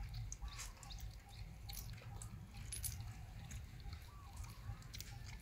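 Faint outdoor ambience: a steady low rumble with scattered small clicks and a few brief high chirps.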